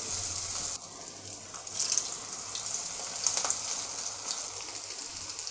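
Potato and vegetable tikkis (cutlets) sizzling and crackling as they shallow-fry in a pan of hot oil, a steady hiss with scattered pops. The sizzle drops a little under a second in, then swells again in spells.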